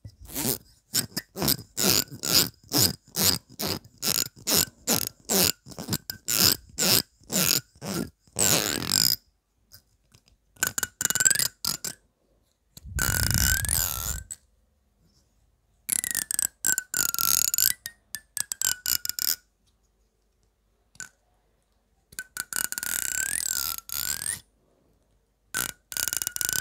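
Fingernails strumming the teeth of a small comb held close to the microphone. First come about two quick rasping strokes a second, then several longer, drawn-out runs along the teeth whose pitch wavers up and down, with short pauses between them.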